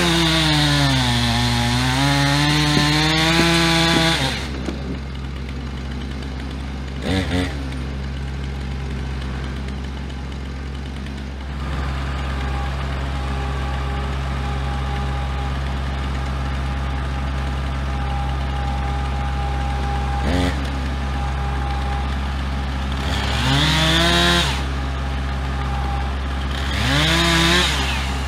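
Chainsaw cutting through a log at full throttle for about four seconds, its pitch sagging under load and recovering, then letting off. Underneath, the compact tractor's diesel engine idles steadily. Near the end the chainsaw is revved briefly twice.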